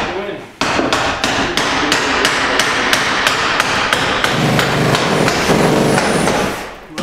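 A hammer driving nails into wooden stage framing: a long, quick, steady run of blows, several a second, starting just under a second in and stopping shortly before the end.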